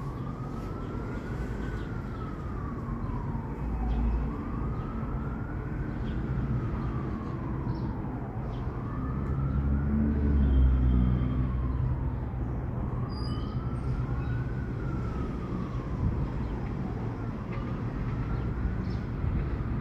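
Emergency-vehicle siren in a wail pattern, rising and falling about every four seconds, over a low city rumble that swells briefly twice.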